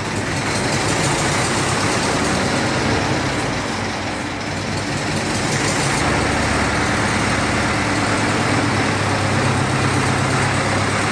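Zetor 8045 tractor's four-cylinder diesel engine idling steadily, freshly cold-started after standing unused for a year.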